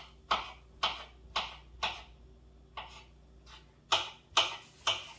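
Knife chopping meat on a cutting board: about nine sharp chops at roughly two a second, with a short pause near the middle.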